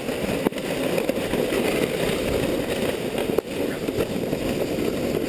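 Plastic sled sliding fast down packed snow: a steady rough scraping hiss with two sharp knocks, one about half a second in and one about three and a half seconds in.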